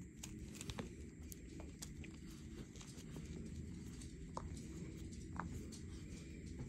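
Hands squeezing and breaking apart a dried block of blue gym chalk and cornstarch: irregular crunches and crackles, with crumbs falling into a foil tray, and a few sharper snaps.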